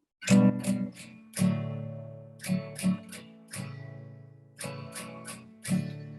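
Acoustic guitar strumming chords in an unhurried pattern, each chord struck and left to ring and fade: the song's instrumental introduction, just before the vocal comes in.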